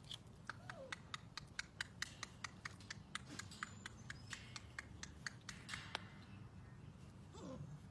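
Faint, irregular clicking and scratching of Rottweiler puppies' paws and claws on the wire mesh of their pen, about three or four ticks a second, with a short falling puppy whine near the start and another near the end.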